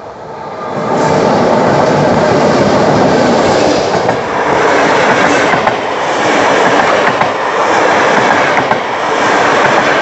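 Electric locomotive and passenger coaches passing close by: wheels rumbling and clicking over the rail joints. The noise rises sharply about a second in and stays loud as the coaches roll past.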